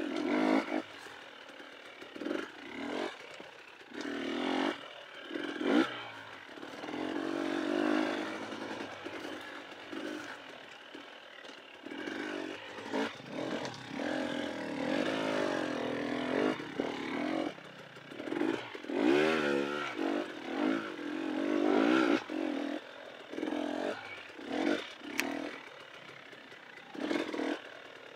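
KTM dirt bike engine revving up and down as it is ridden along a rough trail, the pitch rising and falling again and again. Clatter and knocks come from the bike working over rough ground.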